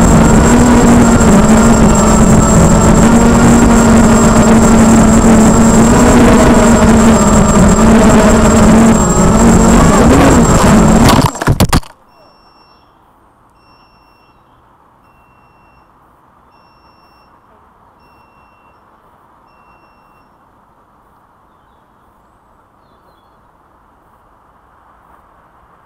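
FPV racing quadcopter's electric motors and propellers whining loudly and steadily. A crash about eleven seconds in cuts the whine off. A faint high electronic beep then repeats about once a second for some eight seconds over a quiet hiss.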